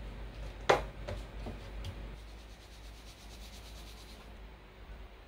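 A wooden spatula spreading tomato sauce across a disposable aluminium foil tray: soft rubbing and scraping, with a sharp knock near the start and a few lighter taps after it.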